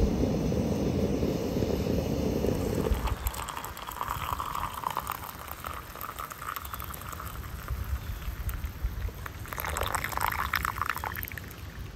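A stovetop moka pot bubbling on a propane camp stove for about three seconds, then hot coffee poured from it into a cup, the stream splashing loudest about four seconds in and again near the end.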